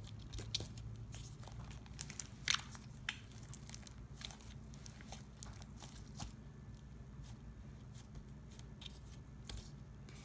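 Homemade glitter glue slime being kneaded and squeezed by hand, giving off scattered, irregular sticky clicks and pops.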